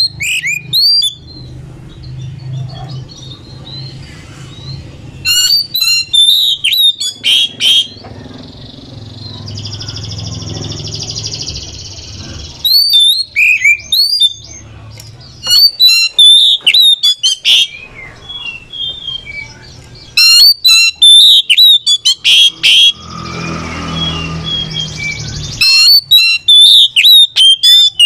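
Male oriental magpie-robin singing loud bursts of rapid, sharp whistled notes, in clusters a couple of seconds long with short gaps between them. A harsh, buzzy rasping call comes through about a third of the way in.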